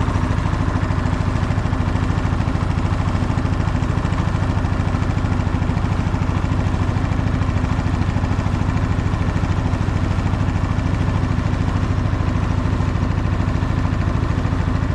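Small wooden boat's engine running steadily under way, a low, even drone.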